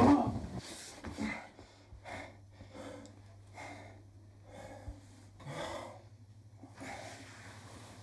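A person breathing heavily in short, ragged breaths and gasps, about one a second, over a faint steady low hum.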